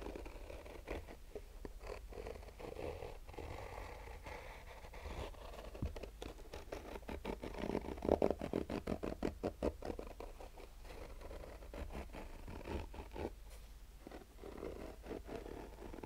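Fingernails scratching the textured woven-fabric cover of a zippered hard-shell sunglasses case, a soft rasping scratch in short strokes. About halfway through the strokes come quicker and louder for a few seconds, then ease back.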